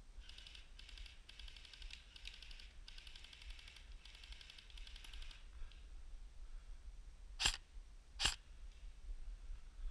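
Airsoft electric guns firing full-auto in four bursts over about five seconds, a rapid, faint clatter of shots. Then two sharp single airsoft shots less than a second apart.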